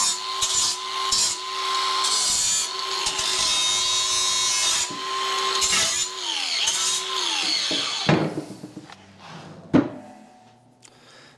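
Cordless angle grinder running against the cut edge of a steel channel, deburring it. Its whine sags each time it bites. About six seconds in it is switched off and winds down, runs briefly once more and winds down again, followed by a couple of sharp metallic knocks as the piece is handled.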